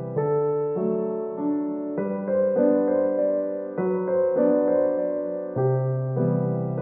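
Background keyboard music: a gentle melody of notes changing every half-second or so over lower held notes.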